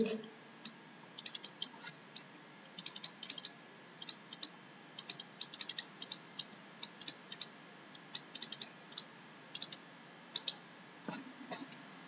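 Light, irregular clicks of a stylus tapping on a pen tablet as words are handwritten, coming in small clusters over a faint steady hiss.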